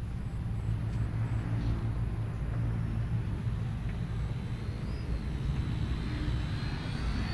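Radio-controlled model airplane's motor whining in flight, its pitch rising and falling as the throttle changes and climbing toward the end, over a steady low rumble.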